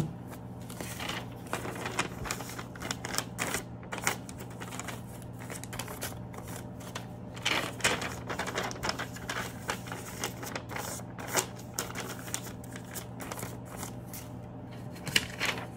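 Sheets of paper rustling, flapping and tapping on a desk as they are sorted, in quick irregular rustles, over a steady low hum.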